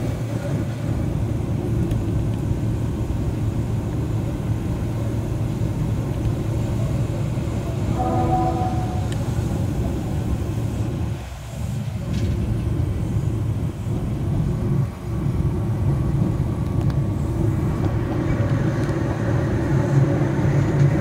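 Keihan Ishiyama Sakamoto Line tram running along its track, heard from inside the car as a steady low rumble of motors and wheels on rails. About eight seconds in comes a brief pitched tone, like a short toot.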